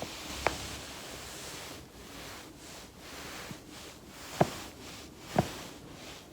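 Spinal joints cracking as the back rolls over a foam roller: a sharp pop near the start, a faint one past the middle, then two loud pops a second apart near the end, over a soft steady rustle.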